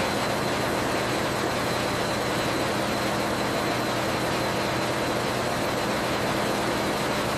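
Steady machinery noise: an even hiss with a constant low hum and a faint high whine, unchanging in level and pitch.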